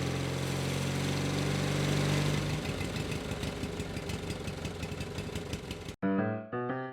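Honda CT125's single-cylinder engine idling steadily; about two and a half seconds in its low steady tone drops away, leaving a rougher, ticking running sound. Near the end it cuts off abruptly and light plucked music begins.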